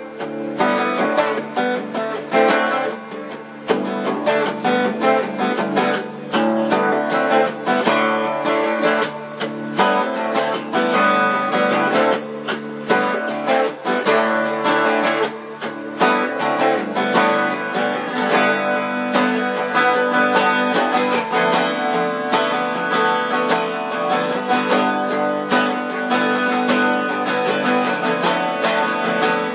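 Music on a guitar strummed in steady chords, one stroke after another without a break.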